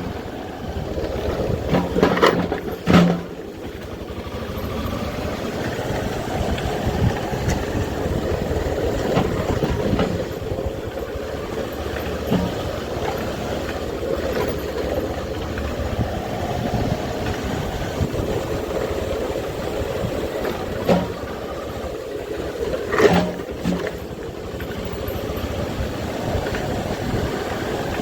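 Motorcycle engine running steadily while riding, with a few short knocks about two and three seconds in and again near the end, as over a rough road.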